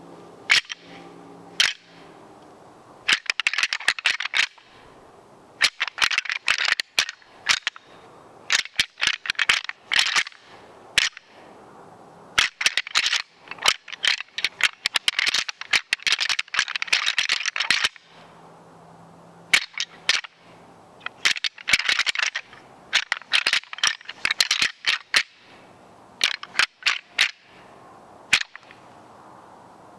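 Deer rattle bag rolled and rubbed between the hands, clattering in rapid runs of clicks that last a second or two each, with short pauses between runs. It is rattling to imitate bucks fighting.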